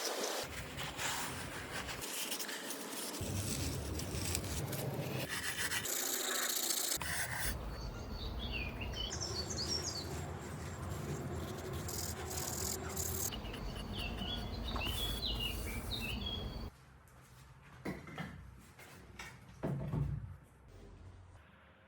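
Steady abrasive rubbing on the pedal car's metal body, in several stretches, stopping about 17 seconds in and leaving a few short knocks. Faint bird chirps sound in the background.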